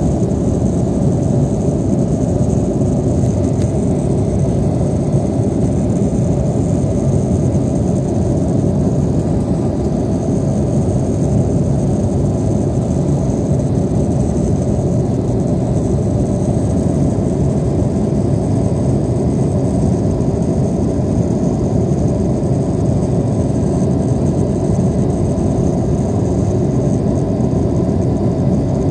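Airliner's engines heard from inside the passenger cabin during takeoff and climb: a steady, loud rumble with a faint high whine above it.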